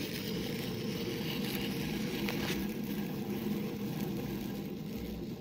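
Geared hand winder whirring steadily as it winds the stretched rubber motor of a rubber-powered model helicopter.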